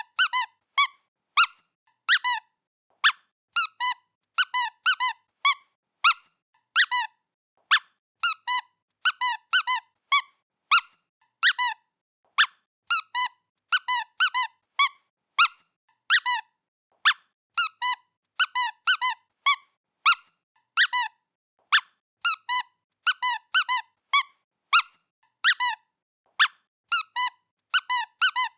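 Squeaky toy squeaking over and over as a cat plays with it. Short high squeaks come singly or in quick pairs and threes, about two a second.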